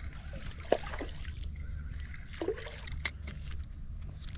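Small hooked sheepshead splashing at the water's surface as it is reeled in to the bank, a few short sharp splashes over a steady low rumble.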